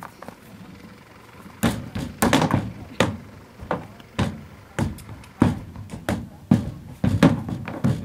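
Horse's hooves knocking on a horse trailer's ramp and floor: a run of uneven heavy thuds, about two a second, starting about a second and a half in.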